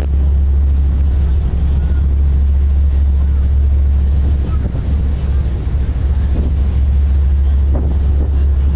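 Steady low drone of a passenger ferry under way, mixed with wind buffeting the microphone on the open deck.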